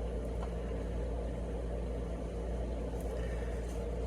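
Steady low hum with even background noise, and a couple of faint clicks about three seconds in.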